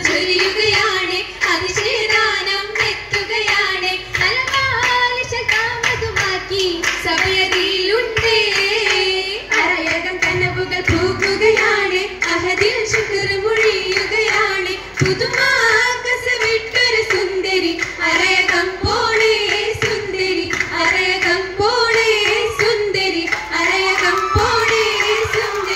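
A group of girls' voices singing an Oppana song (Mappila pattu) together, accompanied by hand clapping.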